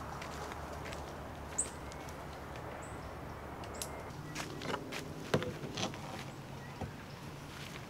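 Scattered light clicks and knocks of fishing gear being handled and fitted onto a kayak, over a steady low outdoor hum. Two short high chirps come about one and a half and three seconds in.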